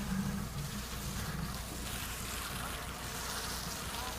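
Rain falling: a steady, even hiss, with a faint steady low hum underneath.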